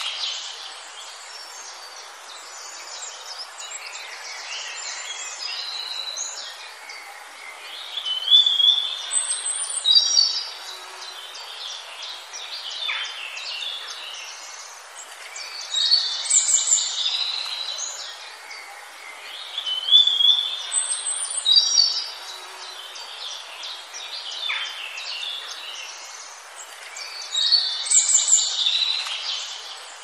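Wild songbirds singing: high chirps, trills and whistles over a steady outdoor hiss, with louder flurries of song every several seconds.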